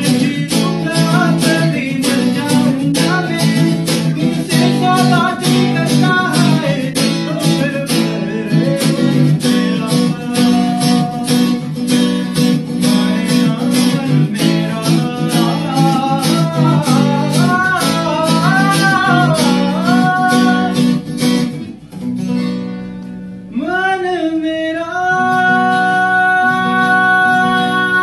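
Acoustic guitar strummed in a steady rhythm, accompanying a man singing a Hindi song. About three-quarters of the way through, the strumming stops and he holds one long note with vibrato over a ringing chord.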